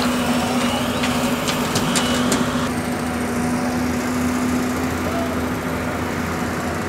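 A heavy machinery engine running steadily at a constant speed, with a few sharp clicks about two seconds in.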